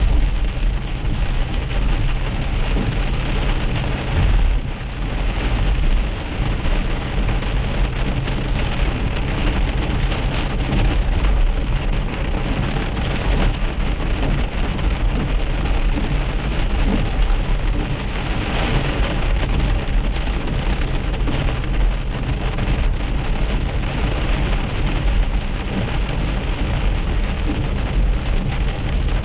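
Hail and heavy rain drumming on a car's roof and windshield, heard from inside the moving car. The pattering is dense and steady over a continuous low rumble.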